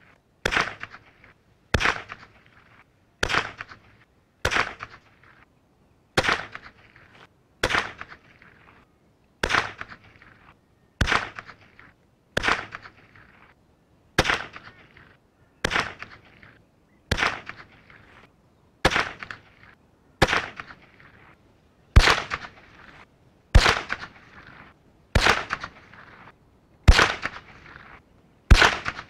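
Anschutz 1761 bolt-action .22LR rifle firing, about twenty sharp single cracks spaced roughly a second and a half apart, each trailing off briefly.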